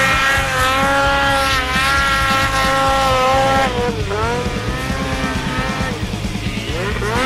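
Ski-Doo Summit 800R snowmobile's two-stroke twin engine revving hard as the sled climbs a snowy hill. The pitch rises and holds high, dips about four seconds in, climbs again, then falls off near the end.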